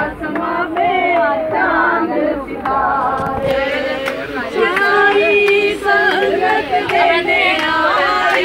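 Several women's voices singing together in chorus, unaccompanied.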